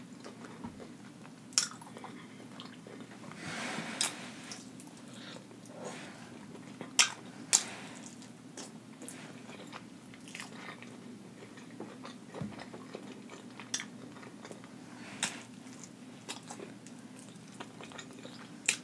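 Close-up chewing of saucy rotisserie chicken, with wet lip smacks and sharp mouth clicks every few seconds over a faint steady hum.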